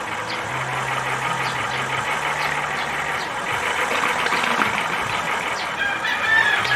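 A motor running steadily, with a low hum that comes and goes.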